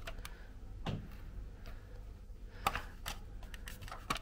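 A few scattered clicks and light taps of hands handling the opened plastic vacuum housing and its battery pack; the sharpest comes a little past halfway.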